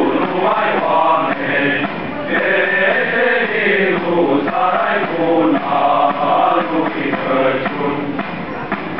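Male choir singing a colindă, a Romanian Christmas carol, in held notes that rise and fall.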